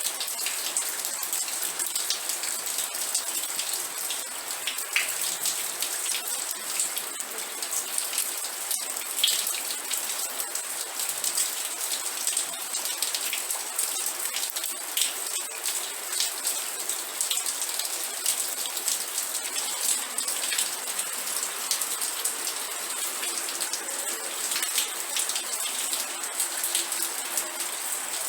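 Steady rain falling, with a dense patter of individual drops striking a surface over a constant high hiss.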